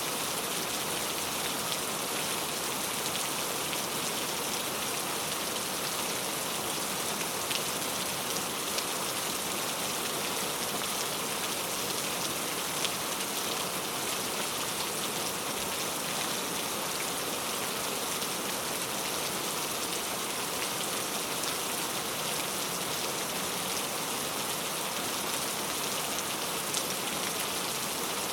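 Steady rain falling, with a few individual drops ticking faintly here and there.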